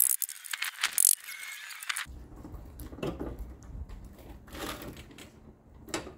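Metal clicks and rattles from an Onan diesel generator's metal housing cover being handled and fitted, sharpest in the first two seconds, then fainter scattered clicks over a low rumble, with one more click near the end.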